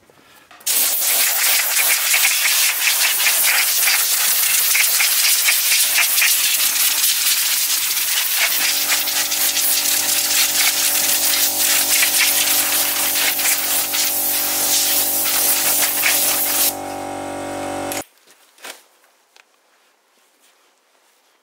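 Compressed-air blow gun hissing loudly in one long continuous blast as it dries a washed alloy wheel. About halfway through, a steady hum joins in; it runs on for about a second after the hiss cuts off, then stops.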